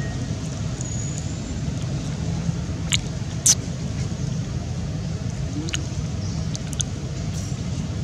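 A few short, high squeaks from long-tailed macaques, the loudest about three and a half seconds in, over a steady low rumble.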